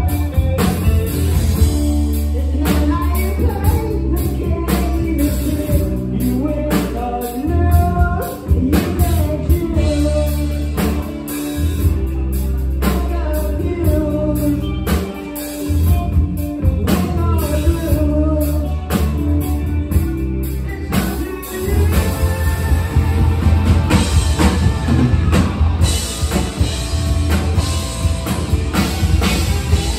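Live rock band playing: lead vocals over electric guitar, bass guitar and a drum kit. About two-thirds of the way through the singing drops out and the band plays on with heavier cymbals.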